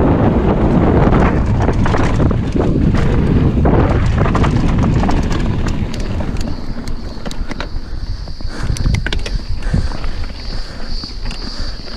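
Wind rushing over an action camera's microphone with mountain bike tyres rolling on dirt and the bike rattling on a fast descent, heavy for the first half and easing about halfway. A steady high whine comes in about halfway and holds.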